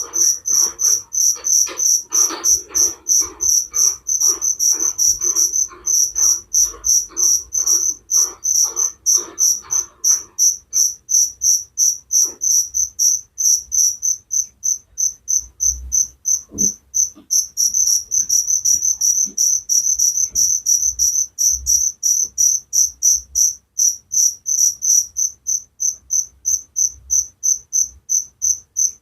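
Cricket chirping steadily in an even train of high-pitched pulses, about three a second. For the first ten seconds a fainter, lower-pitched pulsing keeps time with it.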